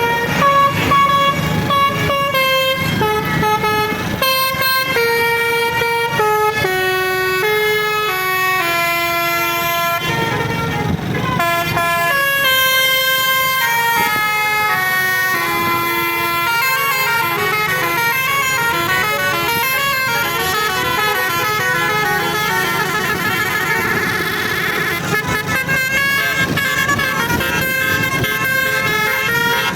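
A bus's basuri multi-trumpet musical air horn playing a tune, note after note in quick pitched steps, over the low running noise of the vehicle. A burst of hiss comes about ten seconds in, and a fast warbling trill about twenty-four seconds in.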